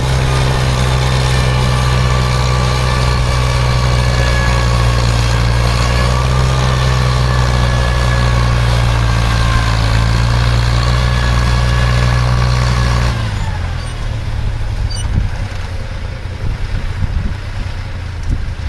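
Engine of a farm machine running steadily, then shut off about thirteen seconds in, its pitch sinking as it stops; wind buffets the microphone after.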